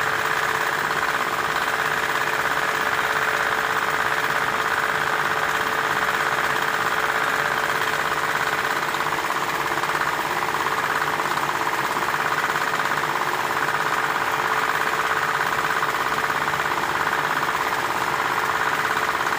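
A machine's motor running steadily, with a constant hum and a fast, even rattle.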